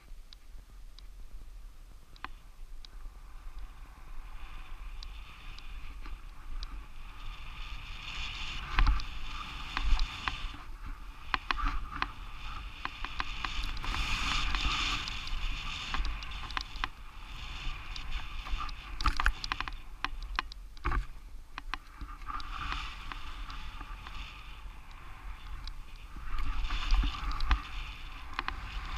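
Skis hissing and swishing through snow on a downhill run, the hiss swelling and fading irregularly, with scattered small clicks and a steady low rumble underneath.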